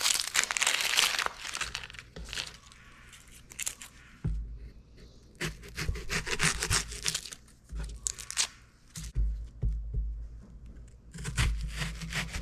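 Dry onion skin being peeled off by hand, crackling and tearing. Then a kitchen knife trims and slices the onion on a wooden cutting board, with low knocks on the board and more crackling near the end.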